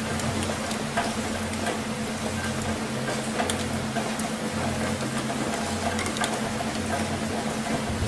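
Aquarium water splashing and trickling steadily, with scattered small drips and a steady low hum from the tank's equipment underneath.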